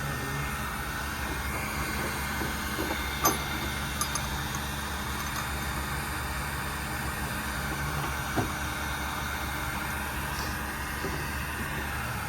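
Steady mechanical hum and hiss, with a few sharp clicks or taps; the loudest click comes about three seconds in, and another about eight seconds in.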